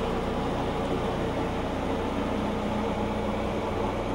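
A steady low motor hum with an even background noise over it.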